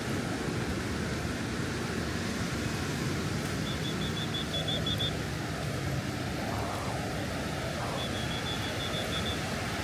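Steady wash of surf and wind. Two short runs of faint high pips, about five a second, come a few seconds in and again near the end.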